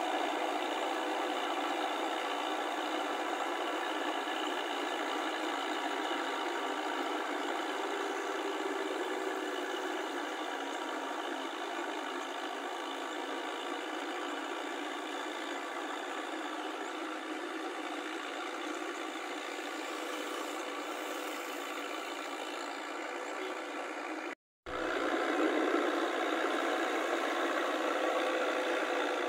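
Tractor on steel half-tracks pulling a rotary tiller through wet paddy, its engine running as a steady drone with many held tones. The sound cuts out for a moment a few seconds before the end, then carries on a little louder.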